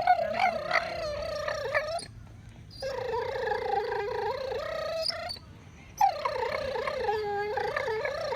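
Duck tolling retriever making long, wavering, squeaky whines while chewing his bone: three drawn-out calls with short breaks between them. These are sounds of contentment, not distress.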